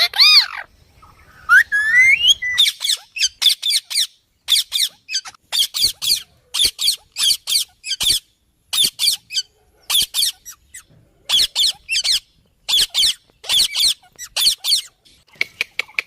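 Ringneck parakeet calling: a rising whistle, then a long series of short, high-pitched squawks in quick runs of two to four.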